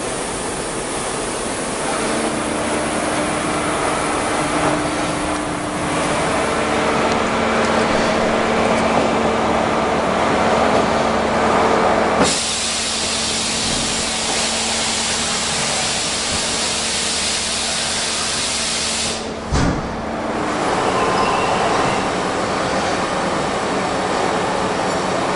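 Deckel Maho DMC 104 V linear vertical machining center running, a steady hiss over a few steady hum tones. The hiss turns brighter about halfway through, and there is a short knock about three-quarters of the way in.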